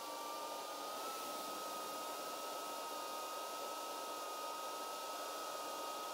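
A steady mechanical whir with a high whine that rises slightly in pitch about a second in and then holds.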